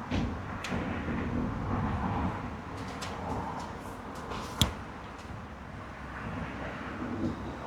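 Handling noises of work on camera wiring inside a van: low rustling and light knocks, with one sharp click about four and a half seconds in.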